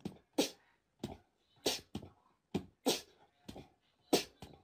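A dog barking in a series of about seven short, separate barks, spaced unevenly about half a second to a second apart.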